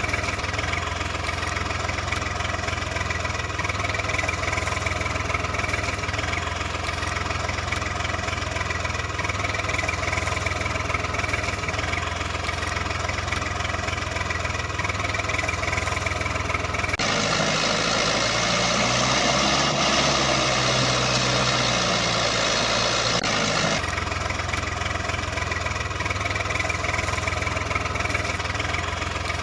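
Steady engine idling sound. About 17 s in it switches abruptly to a brighter, noisier engine sound with a wavering pitch, then cuts back to the steady idle about seven seconds later.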